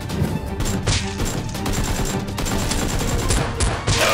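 Rapid bursts of gunfire over background music.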